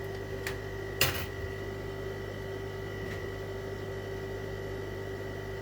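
Steady electrical hum with a faint high-pitched whine, and a sharp click about a second in.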